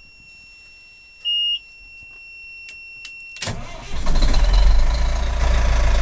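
A dash warning buzzer sounds a steady high tone, with a brief louder beep just over a second in. About three and a half seconds in, the fire truck's Detroit Series 50 inline-four diesel cranks and catches, settling into a steady low idle.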